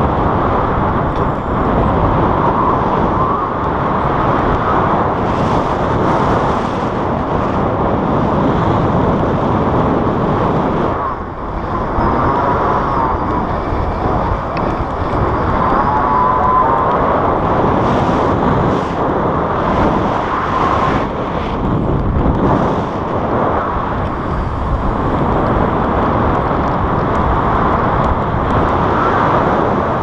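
Airflow rushing over an action camera's microphone in paraglider flight: a loud, steady wind rumble that eases briefly about eleven seconds in.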